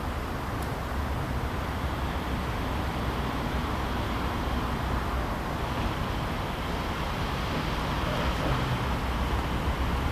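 Steady outdoor background noise with a low rumble, the kind wind on the microphone or distant traffic makes, and no distinct events.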